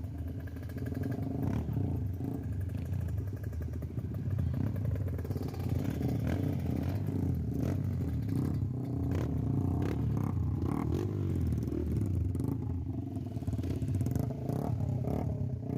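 Motorcycle engine running steadily while being ridden, with a few short knocks and clatters along the way.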